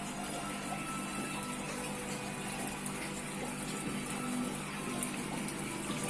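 Aquarium water pump running: a steady wash of moving water with a low hum underneath.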